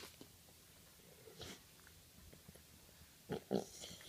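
A bulldog making a few faint, short noises: one about a second and a half in and two quick ones close together near the end, with quiet between.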